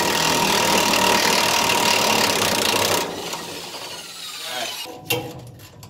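Electric impact wrench hammering on the front leaf-spring eye bolt to loosen it, running steadily and then cutting off about three seconds in. A sharp click follows near the end.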